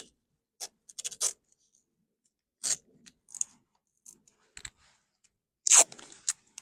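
Strips of tape being pulled and torn off the roll and pressed down, in a series of short scraping, tearing noises, the loudest one near the end.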